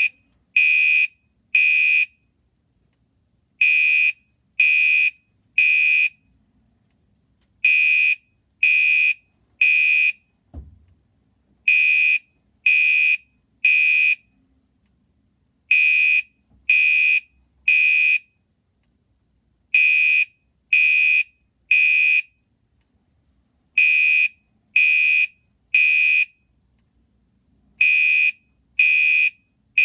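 Gentex Commander 3 fire alarm horn sounding in the temporal-3 evacuation pattern: three high-pitched half-second blasts a second apart, then a pause, repeating every four seconds. A soft thump falls between the third and fourth groups.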